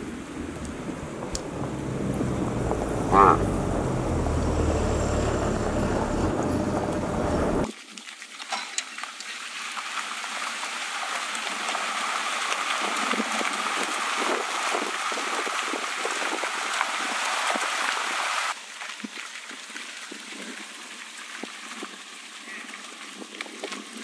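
Water and live fish gushing out of a tank's discharge chute onto a pond bed, a steady rush that cuts off abruptly about two thirds of the way in. Before it there is a low rumble with one brief loud rising tone about three seconds in; after it, a fainter, uneven noise.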